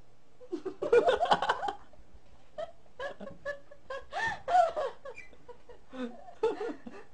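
A person laughing in several bursts, loudest about a second in, with quieter snickers between.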